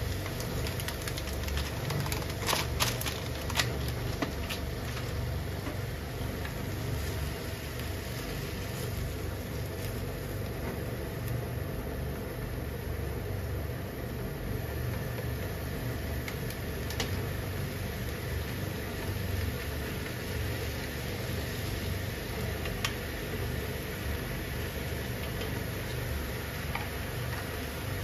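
A steady low mechanical hum with a few light clicks in the first few seconds and two more later on.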